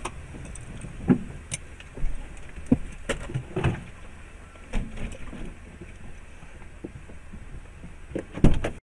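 Truck cab interior on the move: a steady low rumble of engine and road, with irregular knocks and rattles from the cab, the loudest near the end.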